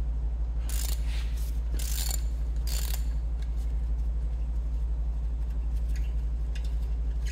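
Socket ratchet clicking in three short runs about a second apart, then more faintly near the end, as the brake disc securing bolt is undone. A steady low hum runs underneath.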